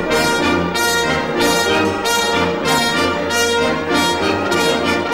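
Orchestral music led by brass, with strong accented chords about every two-thirds of a second.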